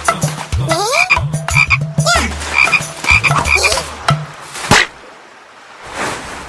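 Cartoon frog croaking in quick repeated calls with short rising glides, then a single sharp smack about two-thirds of the way through.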